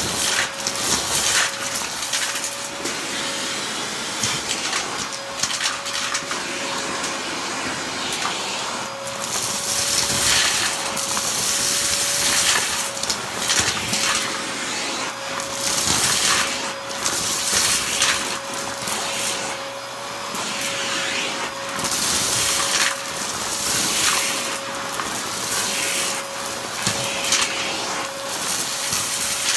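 Handheld vacuum running with a steady motor whine as it is worked into a shag rug, sucking up dumped lint and crunchy crumbs, with repeated bursts of crackling and rattling as debris is pulled in.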